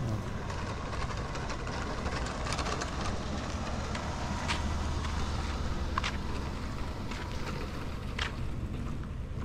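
SUV towing an empty boat trailer driving past, a steady low engine and tyre rumble that swells a little midway, with a few short sharp clicks.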